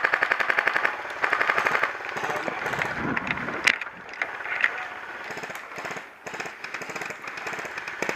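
Airsoft rifles firing on full auto: two rapid bursts in the first two seconds, then scattered single shots and clicks.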